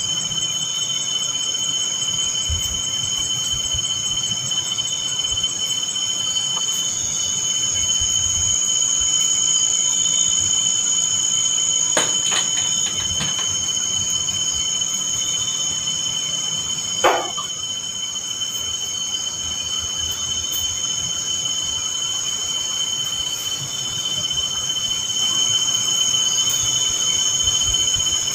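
Night insects keeping up a steady, shrill, high-pitched trill. A few faint clicks come near the middle, and a short squeak slides down in pitch about two-thirds of the way through.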